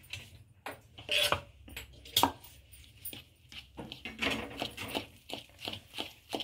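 Cake batter being mixed by hand in a mixing bowl: a utensil clinks and knocks against the bowl, with two louder knocks about a second and two seconds in, then settles into regular stirring strokes about three a second.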